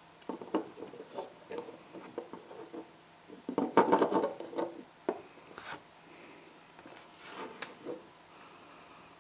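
Small plastic LOZ micro building bricks clicking and rubbing as the parts of an assembled figure are pressed together and turned in the fingers, with a dense flurry of clicks about four seconds in, then scattered clicks that die out.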